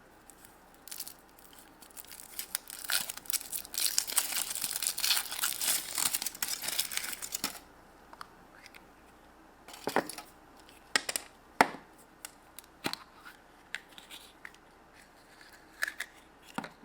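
Foil wrapper of a chocolate surprise egg being torn and crinkled off for several seconds. Then a few separate sharp clicks and snaps as the egg is opened.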